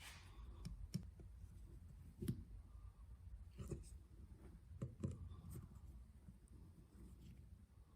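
Faint, scattered clicks and light knocks of a hand tool working on a small metal carburetor part, about seven in all, irregularly spaced, over a low steady hum.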